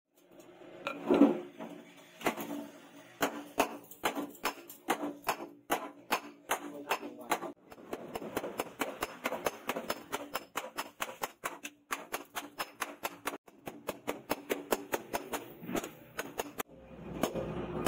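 Hand hammer forging red-hot leaf-spring steel into a cleaver blade on a steel post anvil: a fast, uneven run of sharp metallic blows, about three a second, each with a short ringing note. The blows stop near the end and a steady rushing noise takes over.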